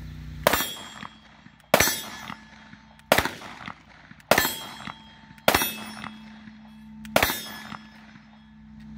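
Six shots from a Canik TP9DA 9mm striker-fired pistol, fired one at a time about a second to a second and a half apart. Each is a sharp crack followed by a brief fading ring.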